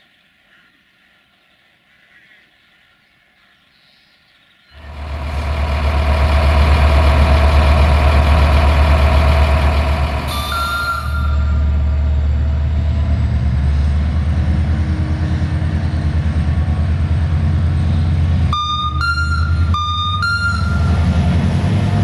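Diesel-electric locomotive GM 64-0962-2 approaching, its engine running loud with a deep low hum from about five seconds in. A short horn toot comes about halfway through, then a string of short horn blasts switching between two notes near the end.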